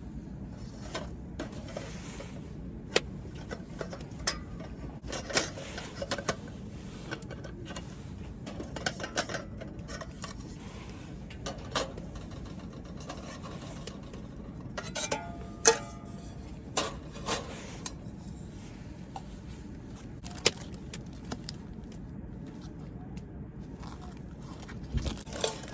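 Irregular sharp clicks, clinks and knocks, like metal cookware and utensils being handled, over a steady low rumble, with a brief metallic ring about fifteen seconds in.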